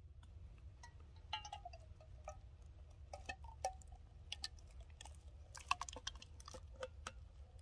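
Canned chunky soup being poured from a tin can into a steel canteen cup: scattered light metallic clicks and short clinks that ring briefly as the can's rim knocks against the cup, with soft wet glops of soup.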